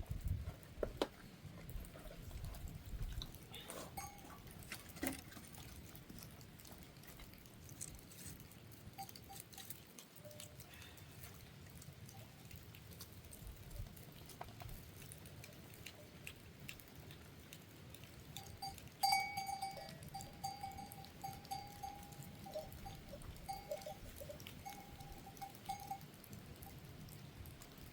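Bells on goats clinking and jingling faintly, with scattered small knocks. About two-thirds of the way through, a bell rings more steadily for several seconds.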